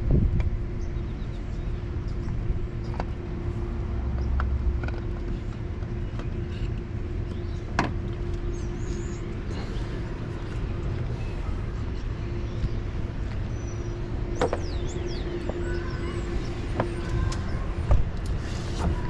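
Steady low vehicle-like rumble with a faint hum, broken by scattered light clicks and taps.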